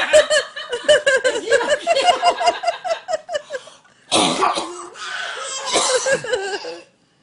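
High-pitched, hearty laughter: a quick run of ha-ha pulses, broken about four seconds in by a harsh cough-like burst, then more laughing.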